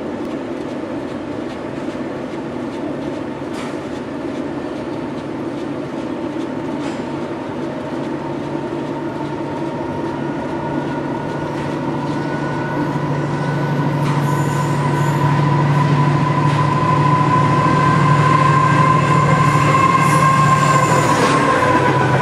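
A container freight train approaches along the main line and runs through the station, its rumble growing steadily louder over the second half. A steady whine strengthens with it and drops in pitch shortly before the end as the train passes close, over a low hum.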